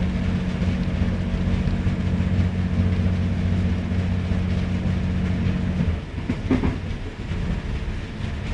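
Interior noise of a First Great Western diesel train in motion: a steady low engine drone over rolling rumble. The drone cuts off about six seconds in, leaving a quieter, uneven rumble of the carriage running on the rails.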